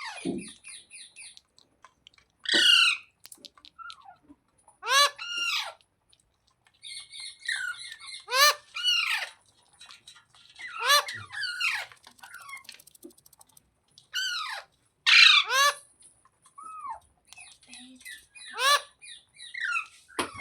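Green ringneck parrot squawking again and again: a loud harsh call every two or three seconds, with softer high chirps and chatter in between.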